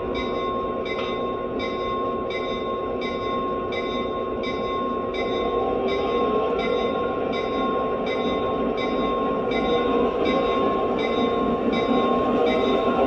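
Lionel Legacy SW8 model diesel switcher's sound system: the diesel engine running while the bell rings over it, about three strikes every two seconds. The engine sound grows louder about five seconds in and again near the ten-second mark as the locomotive throttles up to move out.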